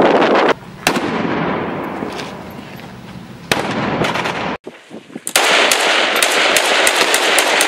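Gunfire: a few separate loud shots with long echoing tails, a brief break, then from about five seconds in a dense stretch of rapid shots.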